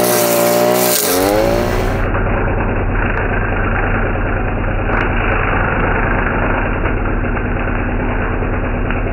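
Maruyama MBS420RS 43 cc two-stroke brush cutter engine cutting tough grass. For the first second or so its revs rise and fall, then it runs steadily at high revs. From about two seconds in it is heard through a camera mounted on the shaft and sounds muffled.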